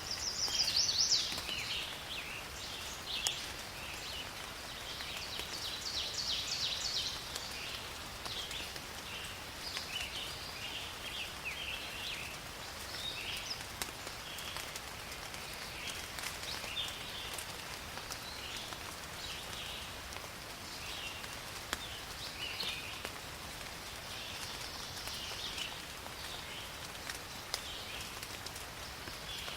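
Steady light rain in a forest, under the repeated short, high chirping trills of small animals, loudest about a second in and again around six seconds in.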